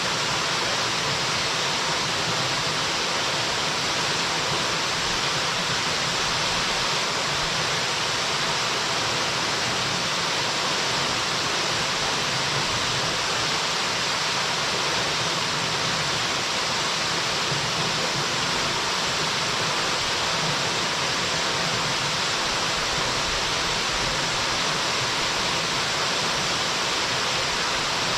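A waterfall rushing steadily: an even, unbroken roar of falling water.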